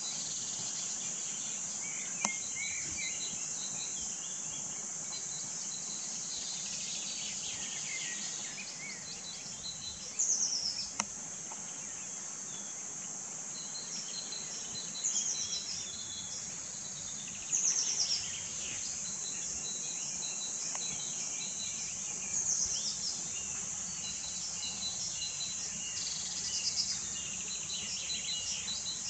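A steady, high-pitched insect chorus. Short bursts of bird calls and chirps sound over it now and then, the loudest about ten, fifteen and eighteen seconds in.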